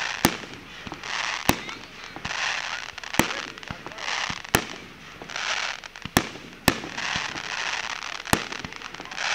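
Fireworks display: aerial shells bursting as about seven sharp bangs at irregular intervals, with a hissing noise swelling and fading between the reports.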